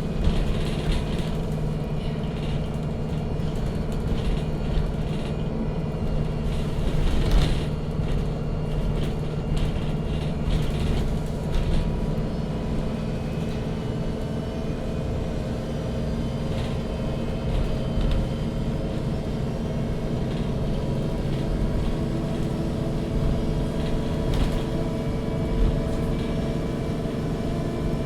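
Inside a MAN NG 313 CNG articulated city bus on the move: its natural-gas engine runs with a steady hum that slowly shifts in pitch with road speed. A few brief clatters and rattles, the loudest about seven seconds in.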